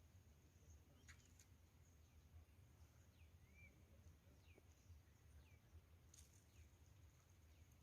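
Faint outdoor quiet with a small bird giving short, falling chirps every half second or so from about three seconds in, over a low rumble and a steady faint high tone.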